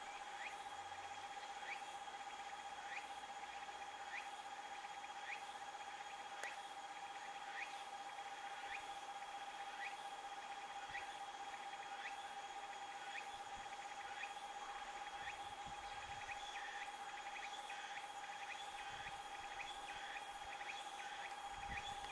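Insects chirping faintly in a regular rhythm, a short falling chirp roughly once a second, over a steady whining tone.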